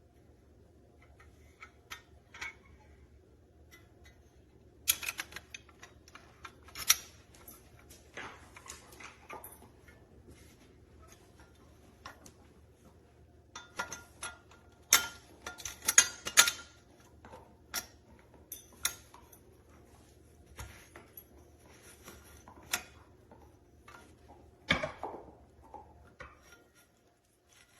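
Metal clicks and clinks from handling a folding stainless steel boat anchor, coming in scattered clusters with the loudest about halfway through, and one heavier knock near the end.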